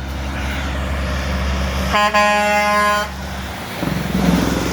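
A passing truck's engine rumbling, with one steady blast of its horn about two seconds in, lasting about a second.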